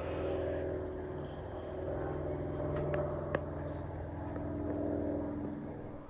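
A motor vehicle's engine running steadily, with two sharp clicks about three seconds in; it cuts off suddenly near the end.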